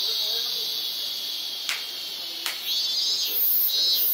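Two sharp hand claps, about a second apart: the double clap of Shinto shrine prayer. They sound over a steady, pulsing high-pitched hiss.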